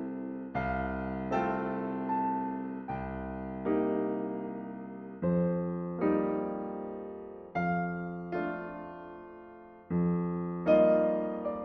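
Background music: slow keyboard chords, each struck and left to fade, coming in pairs about every two and a half seconds.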